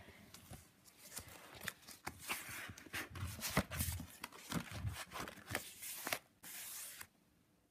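Thick collaged junk-journal pages being turned in a ring-binder folder: irregular rustling and crinkling of paper and card with short clicks and a few soft knocks, then a brief steady rustle shortly before the end.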